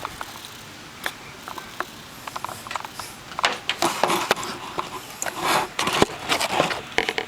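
Close handling noise: scattered sharp clicks and knocks with short bursts of rustling and scraping, busier in the second half.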